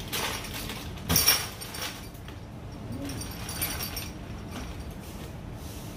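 Plastic blister packs of metal spoon lures rustling and clinking as they are handled and hung on metal pegboard hooks, with one louder clatter about a second in.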